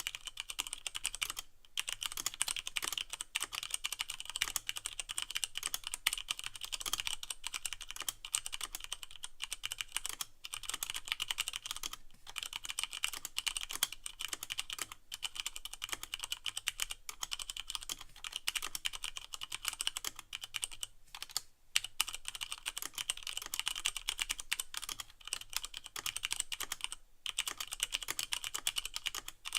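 Steady, fast typing on a Leopold FC660M mechanical keyboard with Cherry MX Brown switches and no O-rings: a dense run of key clicks and bottom-outs, broken by a few brief pauses.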